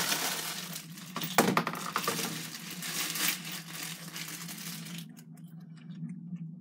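Plastic packaging crinkling and rustling as it is handled and pulled open, with a few sharp clicks among it; the rustling stops about five seconds in, leaving only faint ticks.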